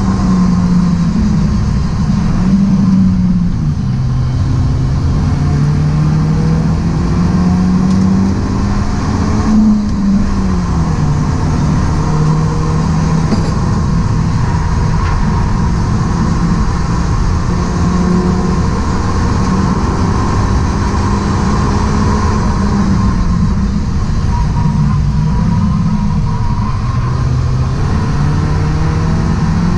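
Stock BMW E36 Compact's engine heard from inside the cabin on a track lap. The revs climb and fall through the corners, with a sharp drop about ten seconds in.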